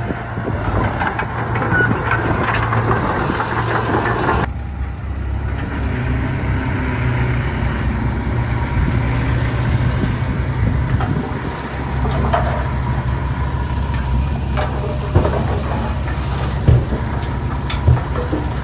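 Heavy diesel engine of earthmoving machinery running steadily with a deep drone. About four and a half seconds in the higher clatter and hiss drop away suddenly, and a few sharp knocks come near the end.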